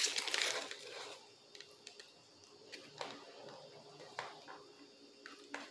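Paper rustling and crinkling as a folded paper note is handled and unfolded, loudest in the first second, then only a few faint paper clicks.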